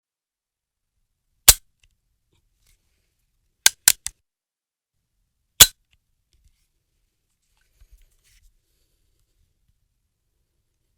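.50-calibre gun's action clicking as it is cocked and dry-fired. A sharp metallic click comes about a second and a half in, a quick run of three clicks around four seconds, another sharp click a second and a half later, and faint ticks near eight seconds.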